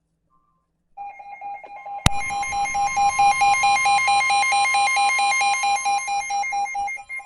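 A weather alert radio's alarm beeping rapidly, starting about a second in. After a click at about two seconds, the steady NOAA Weather Radio warning alarm tone joins it, signalling that a weather alert is being broadcast.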